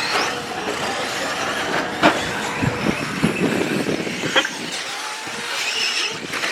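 RC short-course truck racing over a dirt track, heard from a camera mounted on the truck: a steady rush of tyres and running gear with a faint changing whine. Sharp knocks from bumps and landings come about two seconds in, again just under three seconds in, and once more near four and a half seconds.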